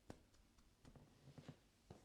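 Near silence with a few faint, short clicks and taps, about five in two seconds.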